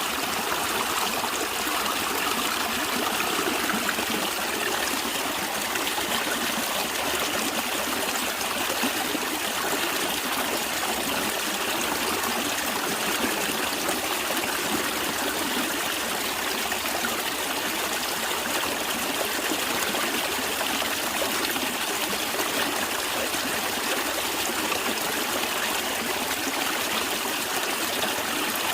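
A stream of water running and trickling steadily, with a continuous rushing and fine splashing.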